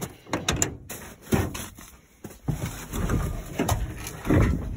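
Irregular thumps, knocks and rustling as someone climbs into the cab of an old pickup truck, the heaviest thump coming a little after four seconds in.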